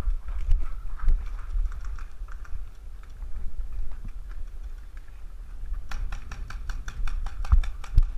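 Paintball marker firing a rapid string of shots, about nine a second for two seconds, starting about six seconds in. Before that, scattered single pops over a low rumble of wind and handling on the head-mounted camera's microphone.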